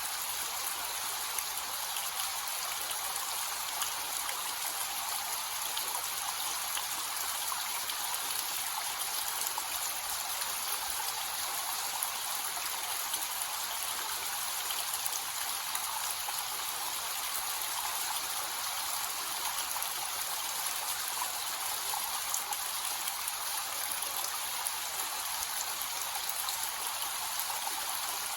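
Small waterfall with a light flow, its water splashing in a steady hiss with no change.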